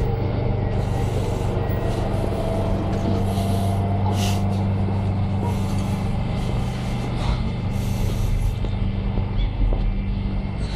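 Interior noise of an NSB Type 74 Stadler FLIRT electric train: a steady low hum with short bursts of hiss every second or two.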